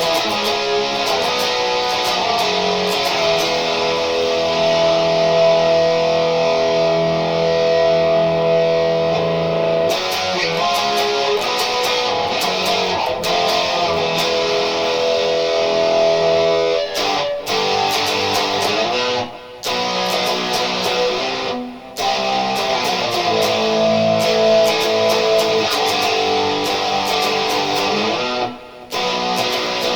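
Harley Benton HB JA-60 Jazzmaster electric guitar with hot P90 pickups, played through an amp: held chords and notes that change every second or so. There are a few short breaks in the second half.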